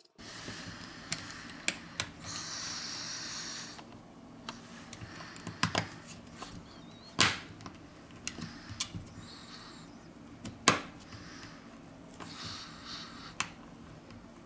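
Handling noise from a smartphone being worked on by gloved hands: scattered sharp clicks and taps of small parts against the phone's frame, with a stretch of rubbing about two seconds in.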